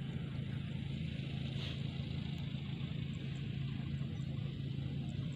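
A steady low mechanical hum, like an engine running at constant speed, with a constant hiss above it.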